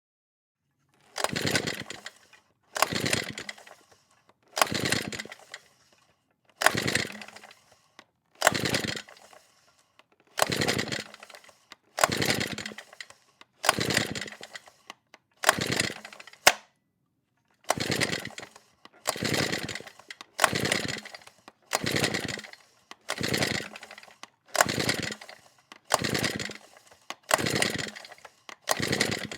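Recoil pull-start cord on a small engine, yanked out and let rewind again and again, about once every one and a half to two seconds. The engine never catches. A single sharp click stands out about sixteen seconds in.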